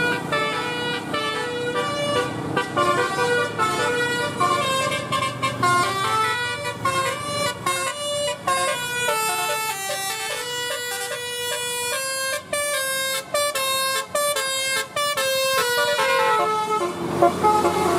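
Telolet bus horn, a multi-tone musical air horn on a QQ Trans coach, playing a tune of stepping notes. The notes come quicker and choppier in the second half.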